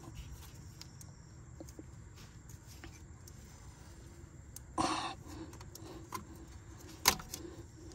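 Quiet handling of metal hand tools on a rear brake caliper, with a short rasping noise about five seconds in and a single sharp click about two seconds later.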